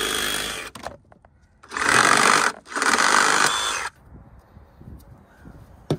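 DeWalt cordless reciprocating saw cutting through PVC pipe. One cut stops under a second in, then the saw runs twice more in quick succession, stopping about four seconds in.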